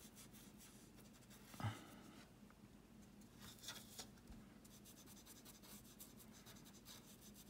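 Near silence with faint, scratchy strokes of a paintbrush working water-soluble oil paint, and one soft tap about one and a half seconds in.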